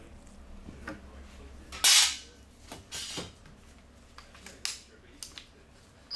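Handling noise from a Snap-on CDR6850A 18 V cordless drill driver, with its motor not running: a loud sharp knock about two seconds in, followed by several lighter clicks and taps.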